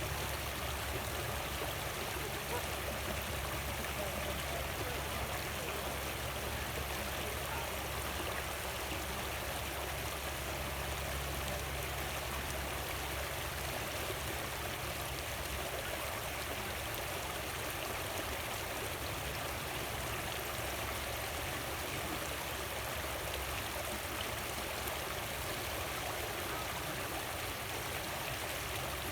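Creek water running, a steady even rush of flowing water. A low hum sits underneath and fades out about a third of the way in.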